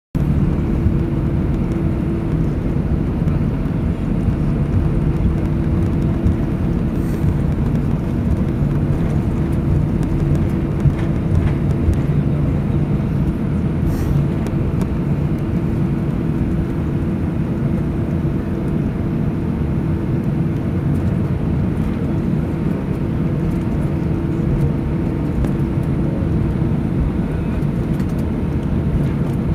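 Airbus A319 jet engines at taxi power heard from inside the cabin: a steady low rumble with an even low hum running through it.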